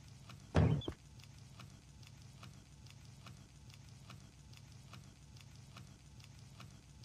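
A short loud vocal sound, like a grunt, about half a second in. Then a steady low hum under soft, even ticking, about two and a half ticks a second.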